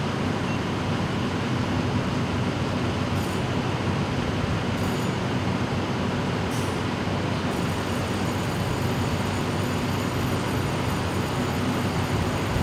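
Diesel engine of a stopped CTA city bus idling: a steady, unchanging low drone.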